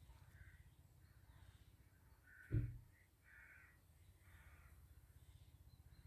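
Faint bird calls: about half a dozen short, harsh, unwhistled notes spread across a few seconds. A single brief low thump about two and a half seconds in is louder than the calls.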